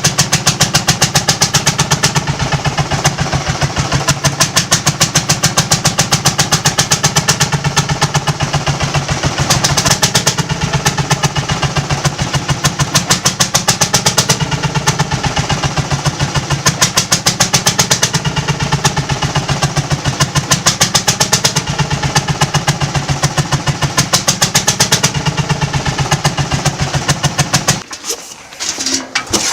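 Old engine running with a steady, even beat of firing pulses, which cuts off shortly before the end.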